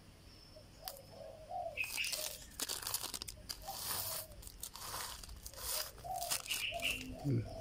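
Clear plastic grow bag packed with dry soil crinkling and rustling in irregular bursts as a hand presses and grips it.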